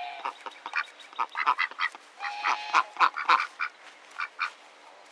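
Pekin ducks quacking: a quick, uneven run of short quacks with a couple of longer drawn-out calls, dying away about four and a half seconds in.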